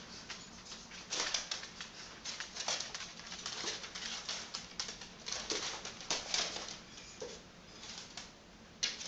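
Paws and claws of a cat and a small dog skittering and tapping on a wooden floor as they dash after a laser-pointer dot: quick, irregular clicks with a few louder scrambles.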